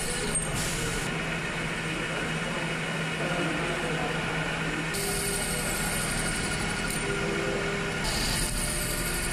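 Small manual lathe running, its spindle and drive giving a steady mechanical hum with a low tone while an aluminum part spins in the chuck. The sound shifts abruptly a few times.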